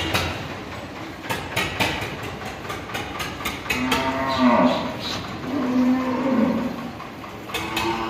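Cattle mooing: three low calls from about halfway through. Before them come short sharp squirts of milk, hand-milked into a metal pail.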